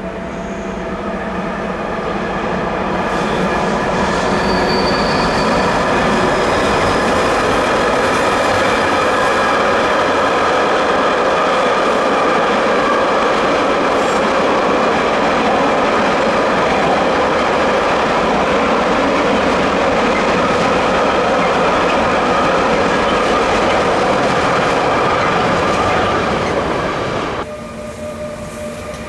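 A train rolling through a tight curve, its wheels squealing against the rails: several steady high-pitched tones over the rumble and clatter of the wagons. It builds over the first few seconds, holds, and drops off suddenly near the end.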